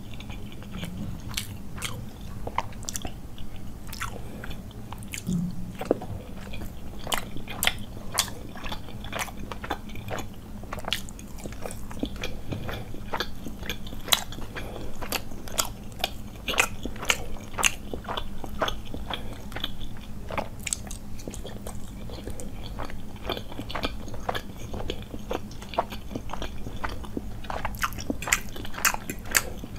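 Close-miked chewing and biting of steamed chicken momo dumplings, with many sharp wet mouth clicks and smacks coming irregularly, several a second.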